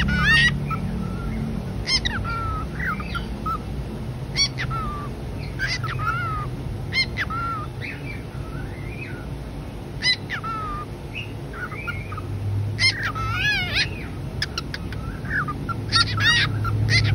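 Cockatiels giving repeated contact calls to each other: short, shrill whistled calls that rise and fall in pitch, one every second or two, with quick runs of several calls about two-thirds of the way in and near the end.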